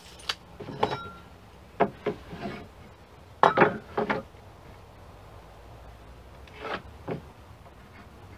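A few short knocks and scrapes of hand marking tools handled against a wooden board as it is measured and marked out: a tape measure, speed square and pencil. The loudest cluster of knocks comes a little past the middle.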